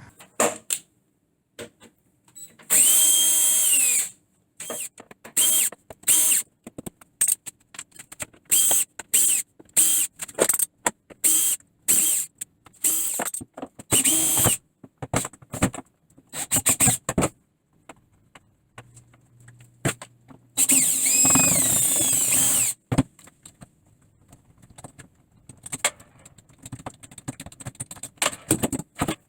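Power drill-driver backing screws out of the old door's hinges and hardware: many short trigger bursts and two longer runs in which the motor pitch rises as it spins up.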